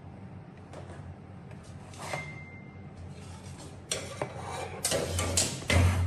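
Metal parts clattering and scraping as they are handled, with a short high squeak about two seconds in and louder knocks and rattles in the last two seconds, over a low steady hum.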